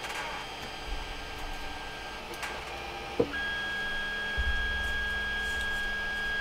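Creality Ender 3's stepper motors driving the axes through a normal auto-home, which checks each limit micro switch in turn. A sharp click about three seconds in, then a steady motor whine with a low rumble joining it a second later.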